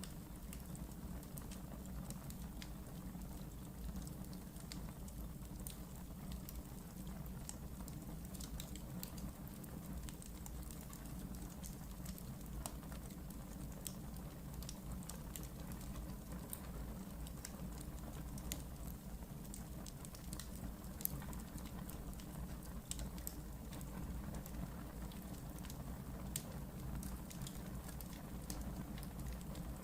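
Wood fire burning in a fireplace: a steady low rumble of the flames with irregular crackles and small pops throughout, one sharper pop about two-thirds of the way through.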